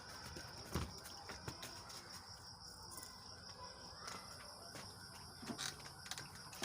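Steady high-pitched drone of insects, with a few faint clicks and knocks scattered through it.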